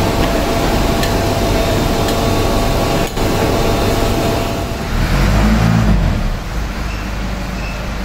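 Industrial leather-processing machinery running steadily, a loud mechanical hum with a faint whine; about five seconds in a deeper low rumble swells briefly, then the noise settles lower.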